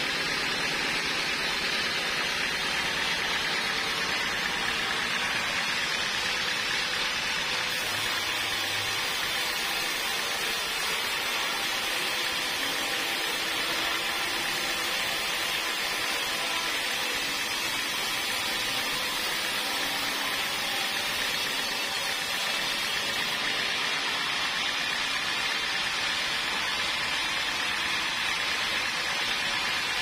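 Band sawmill blade sawing lengthwise through a bayur (wadang) log: a steady hiss of cutting over the running machine, unbroken throughout.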